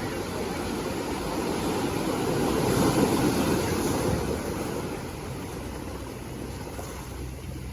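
Rushing sea water and wind with a low engine hum underneath, as from a motorboat under way; the rush swells about three seconds in, then eases.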